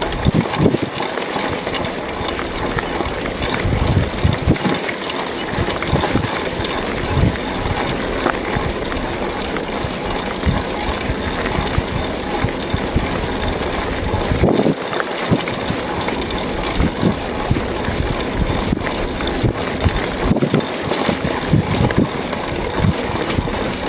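Mountain bike rolling over a rough dirt track: a steady rush of tyre and wind noise, with frequent low knocks and rattles as the bike goes over bumps.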